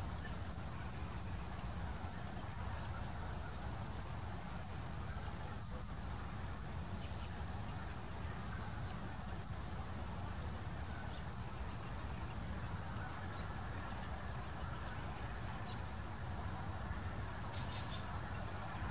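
Steady outdoor background noise, a low rumble with a fainter hiss above it, and a few brief, faint, high ticks near the end.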